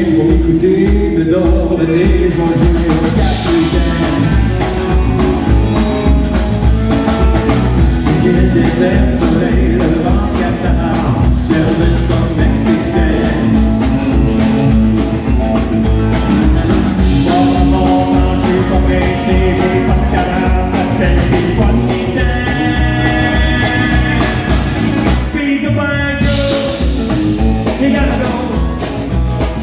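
Live country band playing: acoustic and electric guitars over bass and a steady drum beat, with a man singing.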